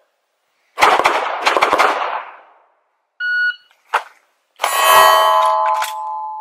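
A burst of gunshots from other shooters about a second in. A little after three seconds a shot-timer beeps, and then a Sig Sauer P320 Compact 9mm pistol fires rapid shots at a steel target, the steel ringing after each hit.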